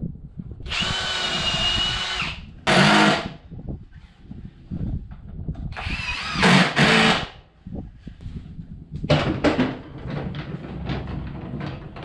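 Cordless drill running into the wooden 2x4 cart frame in several runs, boring pilot holes and driving screws: a steady run of about a second and a half near the start, then shorter, louder bursts with the motor pitch changing under load.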